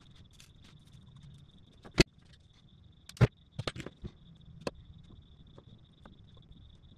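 Sharp knocks and clicks of a soldering iron, a solder spool and small hand tools being handled and set down on a hard workbench: one knock about two seconds in, a louder one a little after three seconds, then a quick run of lighter clicks. A faint steady high whine sits under it all.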